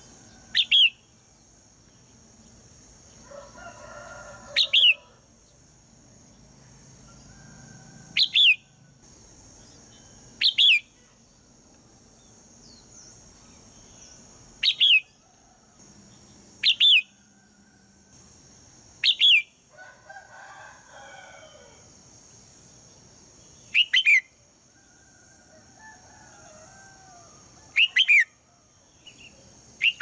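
Red-whiskered bulbul, a female calling to draw a male into song, giving loud, sharp, very short downward-sweeping calls, often doubled, about nine times at irregular gaps of two to five seconds. Fainter, lower calls come in between twice.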